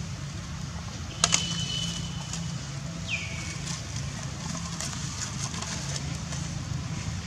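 Dry leaf litter crackling under a long-tailed macaque as she walks and forages, over a steady low hum. A sharp click about a second in is the loudest sound, and a short falling whistle-like call comes about three seconds in.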